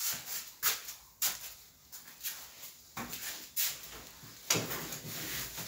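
A handful of sharp knocks and bumps with rustling of clothing, denser near the end, as a person moves close to the microphone and sits down in a leather office chair.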